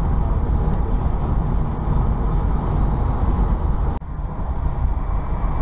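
Car cabin noise while driving on the freeway: a steady low rumble of road and engine noise.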